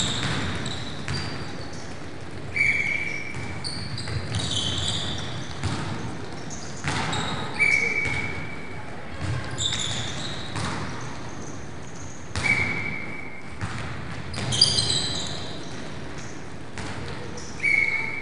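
Athletic shoes squeaking on a sports hall floor as players side-shuffle in a defensive stance, with quick scuffing footfalls. Short sharp squeaks come every few seconds, some higher and in clusters.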